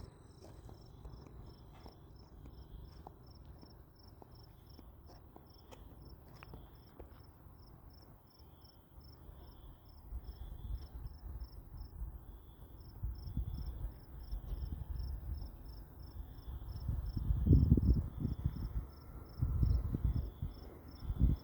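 Insects chirping steadily outdoors, one sounding a regular high pulse about three times a second over softer grouped chirps. Low rumbling swells come and go in the second half, loudest about two-thirds of the way in.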